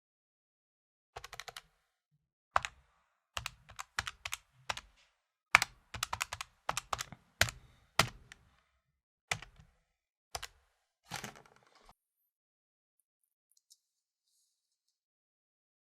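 Calculator keys being tapped by hand: sharp plastic key clicks, irregular, some single and some in quick runs of several presses. The tapping stops about twelve seconds in.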